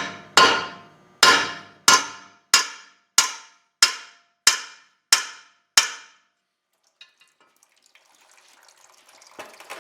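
Heavy hammer striking steel, about nine ringing blows at a steady pace of a bit more than one a second, then stopping about six seconds in. The blows are knocking the pinion yoke off the differential's pinion shaft.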